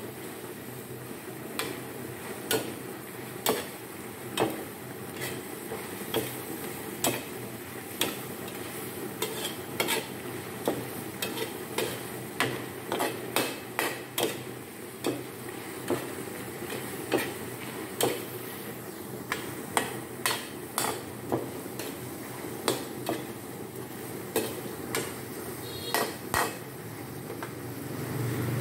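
Metal ladle scraping and knocking against a steel wok in irregular clinks, about one or two a second, over the steady sizzle of squid stir-frying with onions and chillies.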